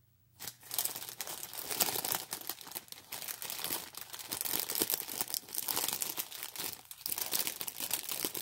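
Clear plastic bags crinkling as hands rummage through a large bag of small zip-lock packets of diamond painting drills; the crinkling starts about half a second in and goes on without a break.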